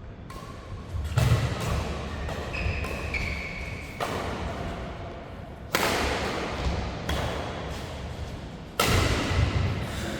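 Badminton doubles rally: rackets striking the shuttlecock in quick succession, with short shoe squeaks on the court. Four louder sudden hits, each followed by a noisy spell that fades over a second or so.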